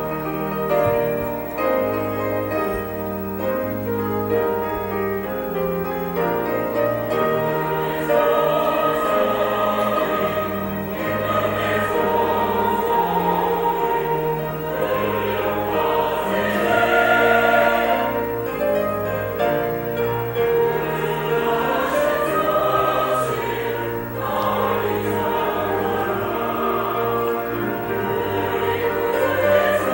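Church choir singing a sacred anthem in several parts, starting abruptly at the beginning.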